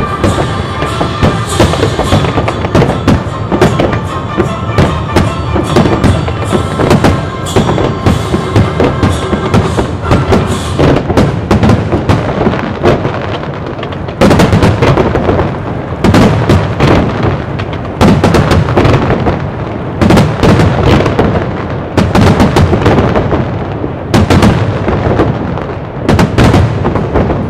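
Aerial fireworks shells bursting in quick succession with crackling, mixed with music. In the second half come loud booms about every two seconds.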